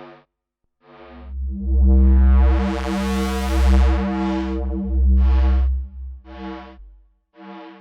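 Arturia JUN-6V, a software emulation of the Roland Juno-60 polyphonic synthesizer, playing a patch of short chord stabs over a held deep bass note. About two seconds in the filter opens into a bright swell that fades back down.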